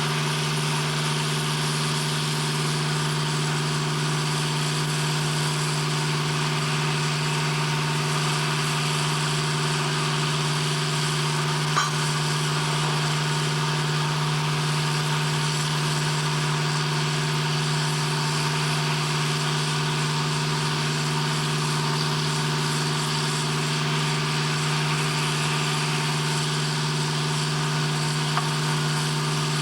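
Steady machinery drone, like an engine idling, with a strong low hum and several steady tones that hold unchanged throughout. A single short click about twelve seconds in.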